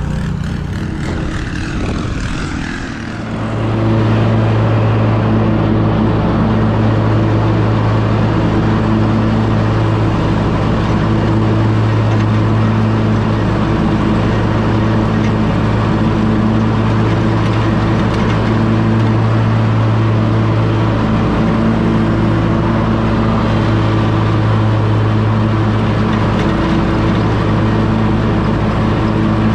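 A zero-turn lawn mower's engine running steadily as it mows, a constant even hum. It comes in after about three seconds, following a short stretch of uneven rustling noise.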